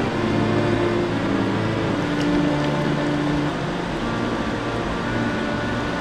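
Steady rush of a mountain river, with background music of held notes that change pitch every second or so laid over it.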